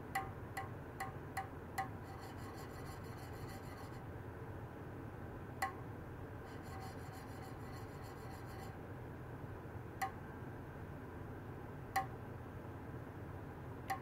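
Ultrasonic probes running in a small stainless steel tray of water, over a steady low hum. Irregular sharp ticks, each with a brief metallic ring, come five in quick succession at the start and then a few seconds apart. Twice a faint, rapid, high-pitched buzzing pattern lasts about two seconds.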